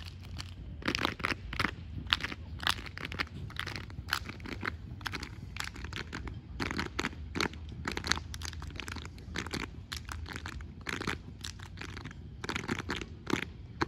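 Sharp, irregular slaps and stomps, two or three a second, from an unarmed exhibition drill routine: hands striking uniforms and boots hitting the floor.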